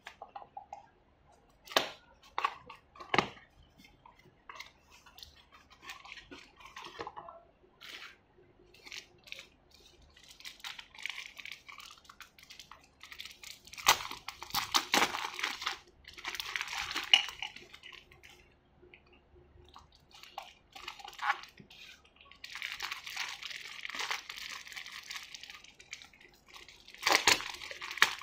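Hands handling a small cardboard box, with light taps and clicks, then crinkling a clear plastic bag around a small plastic figure and dome. The crinkling comes in bursts about halfway through and again near the end.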